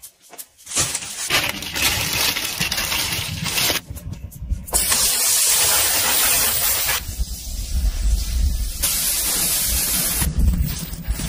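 Hair dryer running, a steady loud rush of air. It drops away briefly about four seconds in, then comes back louder, its sound changing character a few times.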